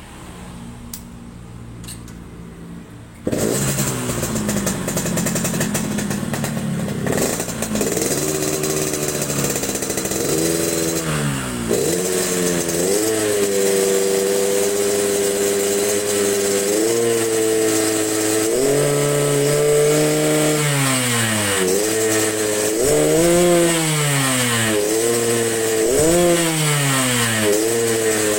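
Yamaha RX-King two-stroke single-cylinder motorcycle engine in a Medan-style 'ngorok' (snoring) tune. It starts about three seconds in and then runs with repeated throttle blips, the pitch rising and falling with each rev.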